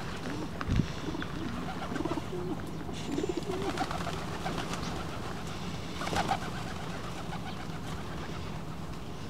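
Feral pigeons cooing, a string of low, wavering calls over the first few seconds, with a sharp thump just under a second in. About six seconds in comes a flurry of wingbeats as the flock takes off.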